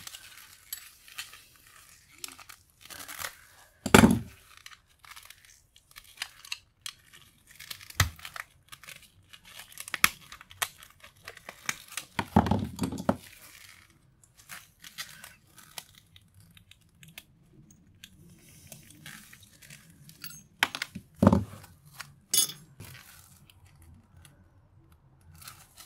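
Metal parts of a brass gauge being pried apart by hand: irregular clicks, scrapes and small knocks of metal on metal, with a few louder knocks, the loudest about four seconds in.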